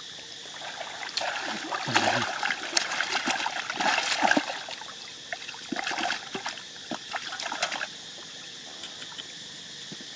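Hands groping and sloshing through shallow, muddy pond water in irregular splashes that die down near the end, over a steady high hiss.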